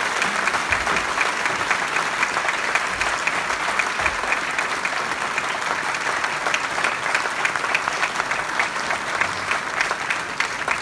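Audience applauding: many people clapping together in a steady dense patter that thins near the end, with single claps standing out.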